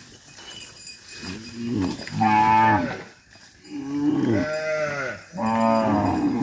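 Cattle mooing: three long, low moos one after another, the first beginning about a second in.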